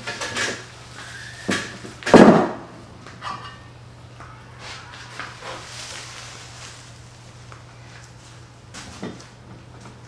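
Metal bed-slide side rail being handled and set down on the slide's deck: a few knocks and clatter, the loudest a heavy knock about two seconds in, then lighter knocks. A steady low hum runs underneath.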